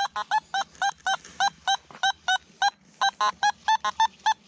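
Nokta Makro Simplex metal detector giving a rapid run of short beeps, about four or five a second, its tone jumping between higher and lower pitches as the coil sweeps over a buried target whose ID keeps changing.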